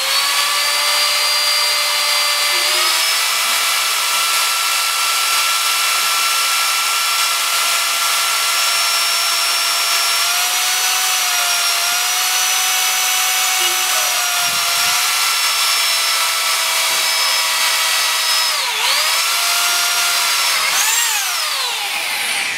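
Bosch GBH 2-28 DFV rotary hammer in rotation-only mode, with no hammer blows, drilling a steel angle bar with a high-speed steel twist bit; the motor gives a steady whine. About nineteen seconds in the pitch drops and recovers, then it rises briefly and winds down as the drill stops near the end.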